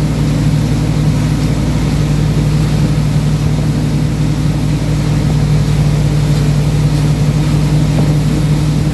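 Wake boat's engine running steadily under way, a loud, even drone, with the churning wake behind the boat.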